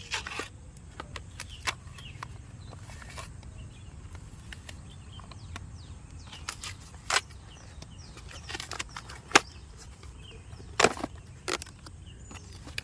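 A blade cutting and tearing open a parcel's packaging: irregular sharp clicks, snaps and short scrapes, with a few louder cracks in the second half.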